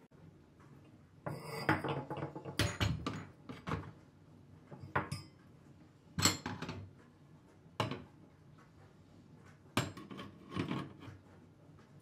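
Metal gas-hob pan supports being set down one by one onto the burners, clattering and knocking against the hob. There are about five short bursts of knocks, the busiest in the first few seconds.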